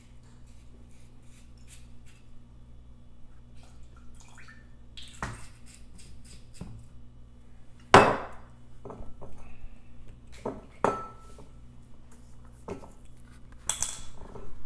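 Glass bottles and kitchenware being handled and set down on a countertop: scattered light clicks and taps, a loud knock about eight seconds in, a glassy clink that rings briefly about three seconds later, and a clatter near the end.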